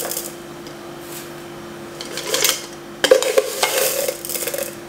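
Steel spoon scraping and clinking against a stainless steel bowl of flour: a short scrape about two seconds in, then a longer stretch of scraping about three seconds in, over a low steady hum.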